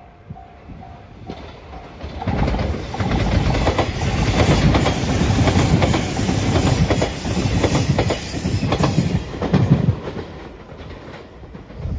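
Level-crossing warning bell dinging in quick repeated beats, then a passenger train passing the crossing at speed, its wheels clacking over the rail joints. The passage is loudest through the middle and dies down near the end.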